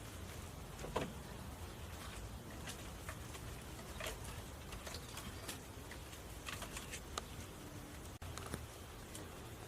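Light rustling with scattered small clicks and knocks of hand work on dry grass and wooden poles, with one sharper knock about a second in.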